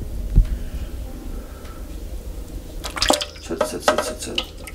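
Steel feeding tongs tapping and clattering against a clear plastic tub that holds a little water, while a mouse is held out to a pacman frog. There is a single knock about half a second in, then a quick run of clicks and rattles in the second half.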